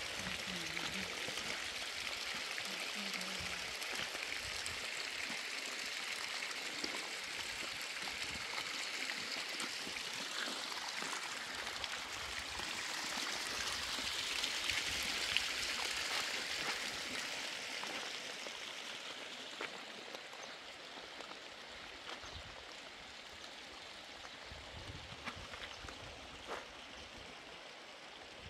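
Water running steadily, as from a tap or hose during laundry washing, with a few light clicks. It grows loudest about halfway through, then eases off toward the end.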